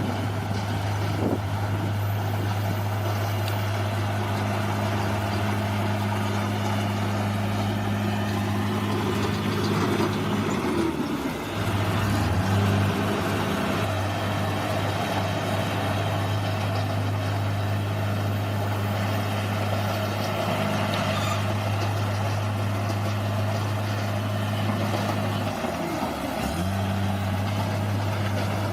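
Bulldozer's diesel engine running steadily, its note dipping and recovering briefly twice, about a third of the way in and near the end.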